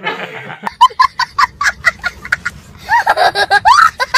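A young child laughing hard in quick bursts of about four or five a second, then in higher rising-and-falling squeals near the end.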